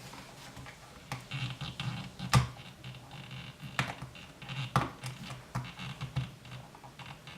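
Irregular small plastic clicks and scraping as an ESC's servo-type receiver plug is pushed and worked against a radio receiver's throttle port, the plug not going in. One sharp click about two seconds in is the loudest.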